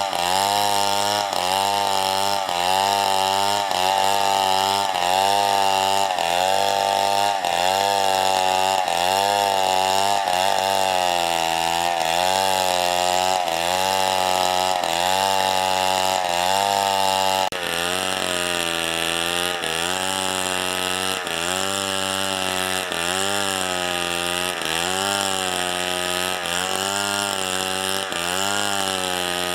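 Chainsaw running at high speed while cutting wood. Its engine pitch dips and recovers in a steady rhythm, a little more than once a second, as the chain bites. A little past halfway the sound shifts abruptly and gets slightly quieter.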